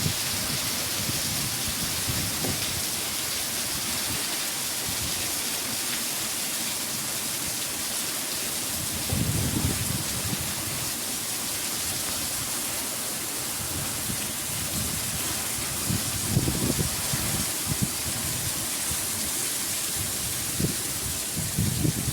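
Heavy rain falling steadily in a storm, an even hiss, with a few short low rumbles rising out of it about nine seconds in, around sixteen seconds and near the end.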